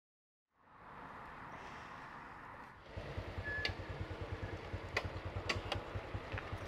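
A small motorbike engine pulls up and idles with an even, low putter from about three seconds in, with a few sharp clicks and knocks as the rider stops. Before that there is a short moment of silence, then steady street background noise.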